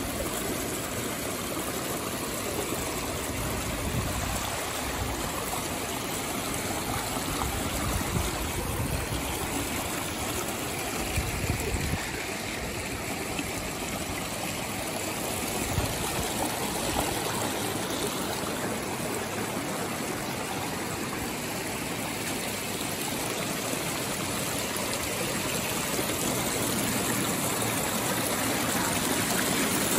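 A rocky stream rushing and splashing over and between boulders in small cascades, a steady rush of water that grows a little louder near the end.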